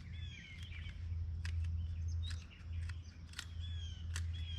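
Birds chirping in short, curving calls several times, with a few sharp clicks and a steady low hum underneath.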